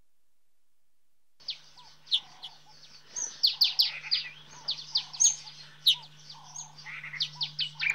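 Sunbird calling: quick runs of high, sharp, downward-sweeping chirps, starting about a second and a half in, with a faint steady low hum underneath.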